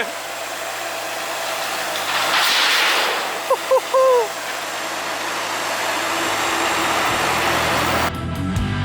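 Tracked skid steer's diesel engine running steadily after start-up, broken by three short high chirps about three and a half seconds in. Rock music with guitars starts near the end.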